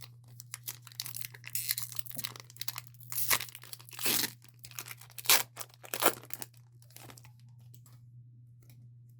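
Foil Pokémon TCG booster pack being torn open, with a run of tearing and crinkling of the wrapper that dies down about seven seconds in.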